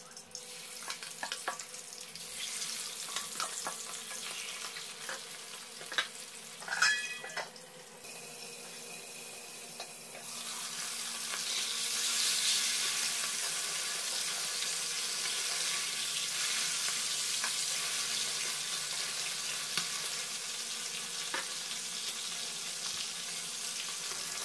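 Pieces of fish frying in hot oil in an aluminium kadai. A few knocks and a ringing clink against the pan come in the first several seconds, then the sizzling swells about ten seconds in and stays steady.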